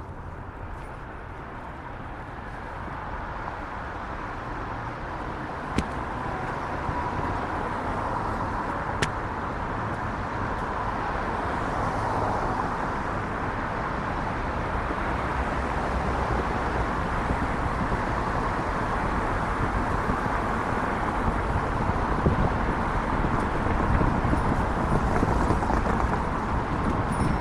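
City street traffic noise, a steady rushing haze that grows gradually louder, with two brief sharp clicks about six and nine seconds in.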